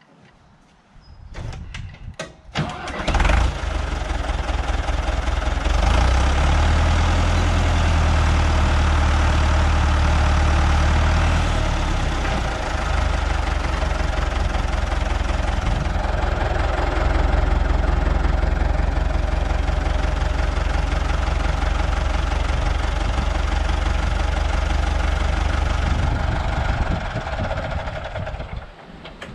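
Fendt Farmer 108 tractor's diesel engine starting about three seconds in, after a few clicks, then running while the front loader's hydraulics lift a heavy load. The engine note is heavier and deeper for several seconds after it starts, then runs steadily, and stops near the end.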